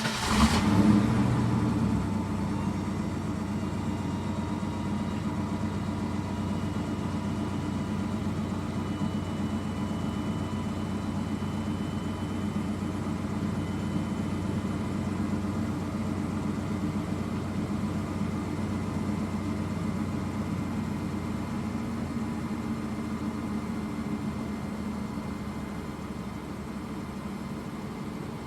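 Car engine starting and revving briefly in the first two seconds, then settling into a steady idle that slowly fades near the end.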